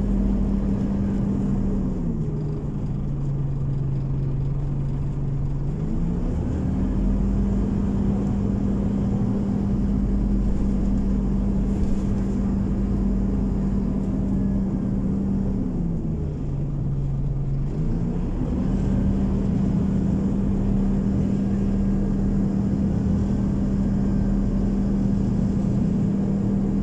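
Scania OmniCity city bus running, heard from inside the passenger cabin: a steady low engine hum over a rumble. Twice the hum glides down lower for a few seconds and then climbs back, as the engine slows and picks up again.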